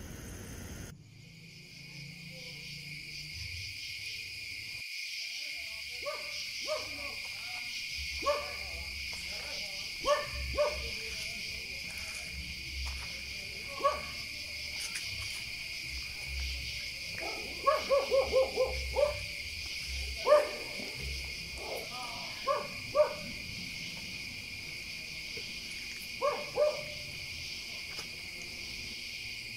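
Night ambience: a steady chorus of chirring insects such as crickets, with a dog barking on and off, including a quick run of several barks past the middle.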